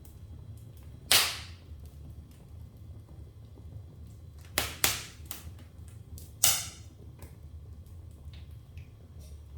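Wood fire in a fireplace crackling, with four loud sharp pops: one about a second in, two close together around the middle, and one more a little later, over faint small crackles.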